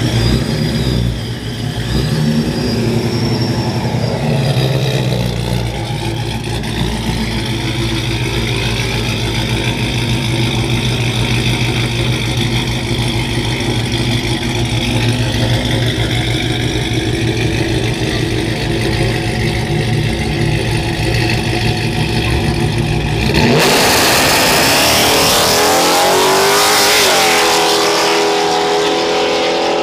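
Ram 1500 pickup's engine running and revving through a burnout and staging, then going to full throttle about 23 seconds in as it launches down the drag strip. The launch is the loudest part, rising in pitch for a few seconds before easing as the truck pulls away.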